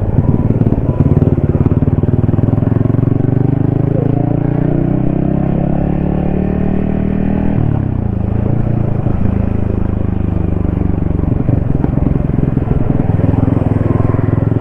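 Yamaha XSR155's 155 cc single-cylinder engine under way, heard from the rider's helmet. The engine note climbs for a few seconds as the bike accelerates, drops sharply about seven and a half seconds in, then settles to a steady cruising note.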